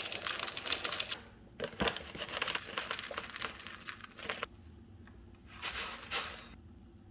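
Senegal parrot crunching food in its beak: spells of rapid, crisp clicks and crackles, the last short one about five and a half seconds in.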